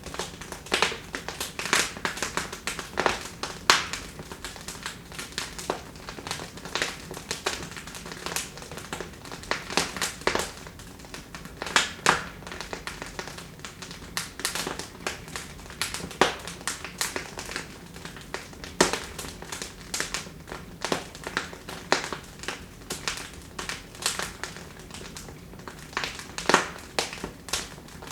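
Wood fire burning in a fireplace, crackling and popping: irregular sharp snaps, some louder than others, over a low hiss of the flames.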